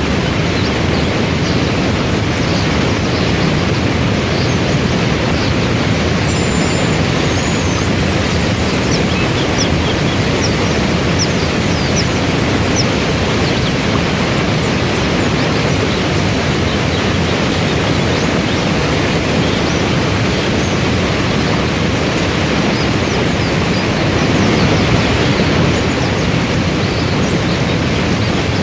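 Waterfall and river rapids rushing: a steady, loud hiss of falling and churning water that holds even throughout.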